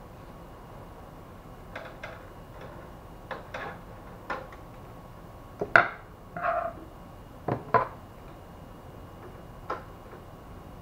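Scattered plastic and metal clicks and knocks from hands working at the side frame of a stripped-down HP LaserJet M401dn printer, handling its wiring connectors and parts. The loudest click is about six seconds in, with a short scrape just after and two more knocks a couple of seconds later.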